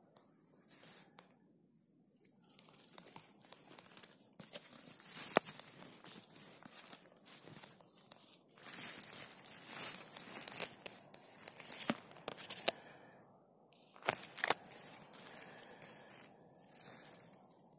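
Dry conifer needles and twigs rustling and crackling as a hand rakes through the forest-floor litter around porcini mushrooms, with sharp cracks here and there.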